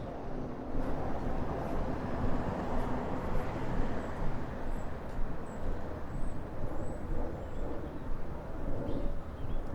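City street ambience dominated by the steady rumble of vehicle traffic, with a few short high chirps about halfway through.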